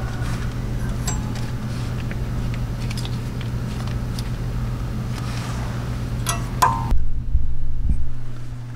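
Light metal clicks and clinks of hands fitting new brake pads into a Mercedes rear brake caliper, over a steady low hum. A few sharper clinks, one with a short ring, come about two-thirds of the way through.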